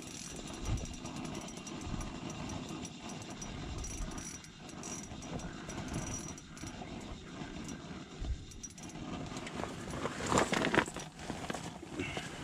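Handling noise of ice-fishing gear and clothing: a spinning reel and rod being fiddled with, jacket sleeves rustling, and faint scattered clicks, with a louder rustle and knock about ten seconds in.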